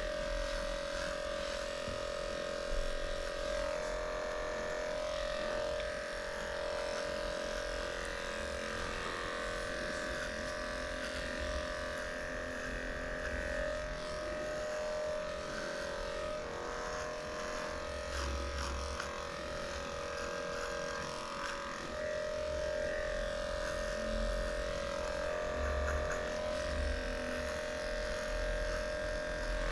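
Electric dog grooming clippers running steadily with a constant buzzing hum.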